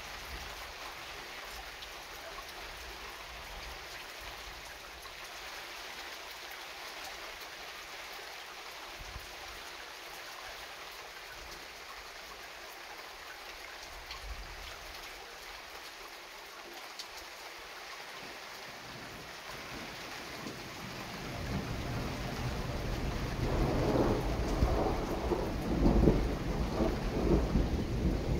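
Thunderstorm: steady rain falls, and about twenty seconds in a long roll of thunder builds, swelling into loud rumbling waves.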